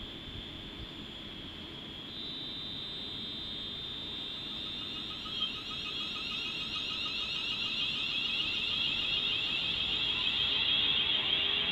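Class 360 Siemens Desiro electric multiple unit pulling away, its traction equipment giving a high-pitched whine that steps up in pitch about two seconds in and grows steadily louder, with fainter rising tones joining as the train gathers speed.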